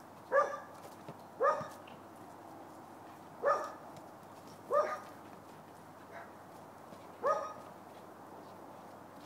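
Dog barking as it plays with a basketball: five short single barks, each dropping slightly in pitch, spaced one to two and a half seconds apart.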